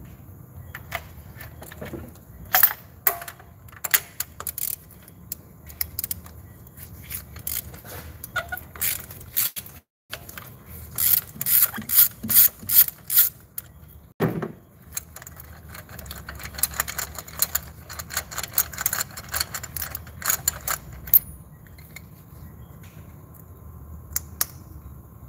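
Ratchet wrench clicking in quick runs of strokes, turning a spark plug socket, with scattered single tool clicks and a knock in between.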